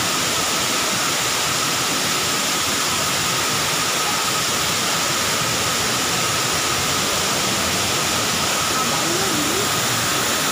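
Waterfall: water falling down a rock face and splashing into a pool, a steady, unbroken hiss.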